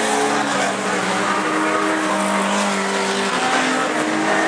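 Several old stock cars racing on a dirt track. Their engines run together as overlapping, fairly steady engine notes at different pitches.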